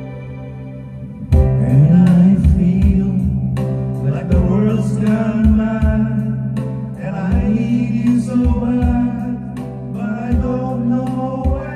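Man singing karaoke into a microphone over a backing track: a held keyboard chord gives way about a second in to a song with a regular beat and guitar.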